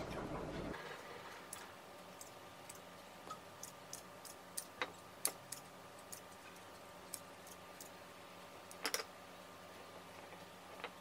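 Kitchen scissors snipping slices of bread into a ceramic baking dish: a string of irregular sharp clicks, a few of them louder snaps.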